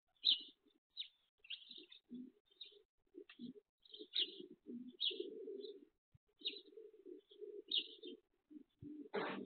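Domestic pigeons cooing in short repeated bursts, with small birds chirping high above them throughout. A brief, louder rustling burst near the end.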